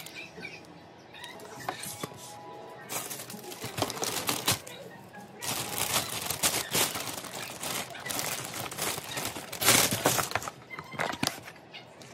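Thin plastic carrier bag rustling and crinkling as a boxed chicken delivery is handled and unwrapped, with the loudest rustle about ten seconds in, over background music.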